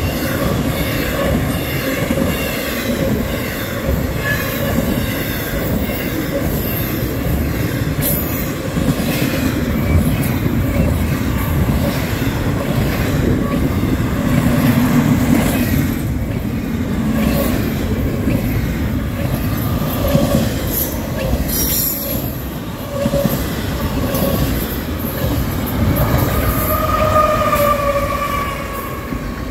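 Double-stack intermodal freight train rolling past close by: a steady rumble of wheels on rail, with wheels squealing at times. Near the end the mid-train distributed-power locomotive, a CSX GE ET44AH, comes by.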